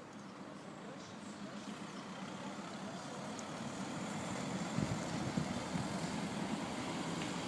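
An engine running steadily, gradually getting louder, with a few low knocks about five seconds in.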